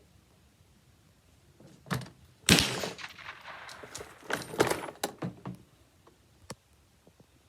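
A single loud shot from an AR-15-style rifle about two and a half seconds in, with a long ringing tail. It is preceded by a click and followed by a run of sharper clacks and knocks a couple of seconds later.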